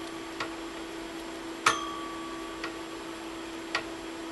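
Small metal clicks and tinks of wire connectors and a hand tool being handled, four in all, the second the loudest and ringing briefly, over a steady low hum.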